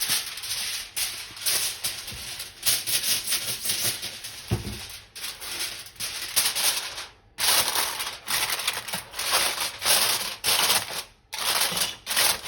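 Aluminium foil crinkling and rustling in irregular bursts as it is pressed over a roasting pan, with a dull low knock about four and a half seconds in.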